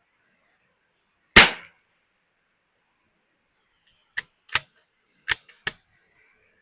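A single .22 LR rifle shot from a Ruger Precision Rimfire bolt-action rifle, a sharp crack about a second and a half in. About three seconds later come four short, quieter metallic clicks in quick pairs, the bolt being worked to eject and chamber the next round.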